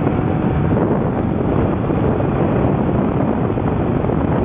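Steady wind rushing over the microphone of a Suzuki Bandit 1200S motorcycle riding at road speed, with the bike's engine running underneath.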